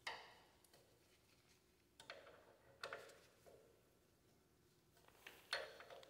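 Light metallic clinks and knocks from a brake caliper being handled and set against its mounting bracket: one at the start, a few more around two to three seconds in, and the loudest pair shortly before the end.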